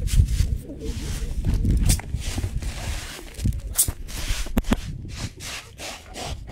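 Wheat grain rustling and sliding in a woven basket tray as it is shaken and sifted by hand, with two sharp clicks past the middle.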